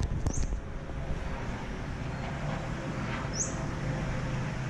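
Steady low rumble of city traffic with a bird's short high chirp twice, just after the start and about three seconds in.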